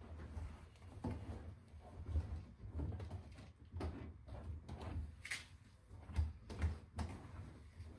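Laundry being pulled by hand out of a front-load washer's stainless steel drum: rustling fabric and irregular knocks and bumps against the drum and door opening, with a few sharper knocks in the second half.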